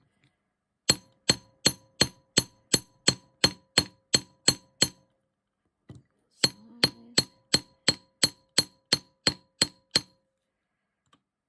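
Hand hammer striking argentium silver wire on a metal block, flattening the wire's end into a paddle: two runs of about a dozen quick, even blows, roughly three a second, each with a short metallic ring, with a pause of over a second between the runs.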